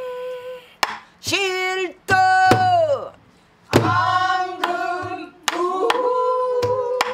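A woman singing pansori in long, bending, held notes, accompanying herself with sparse sharp strokes on a buk barrel drum. There is a short pause about three seconds in, after one falling glide, and the voice then holds a long note near the end.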